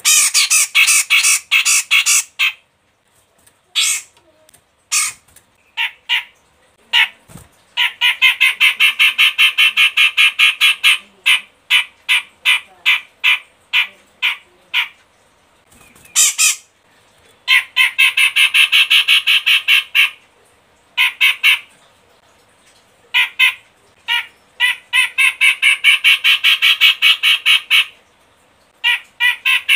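Cucak jenggot Medan (grey-cheeked bulbul) calling in long runs of rapid, harsh repeated notes, about five a second. The runs last several seconds each and are broken by short pauses and a few single notes.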